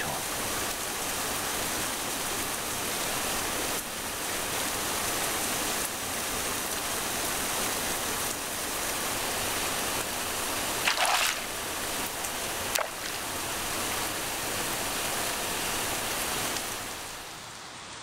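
Heavy rain pouring steadily onto pavement, an even hiss that fades out near the end.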